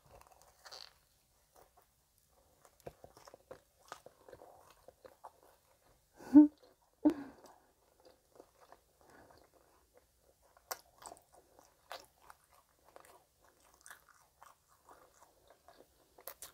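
A person chewing a deep-fried twisted donut with a crumbly streusel topping: a bite, then soft crunches and small mouth clicks, with two louder sounds about six and seven seconds in.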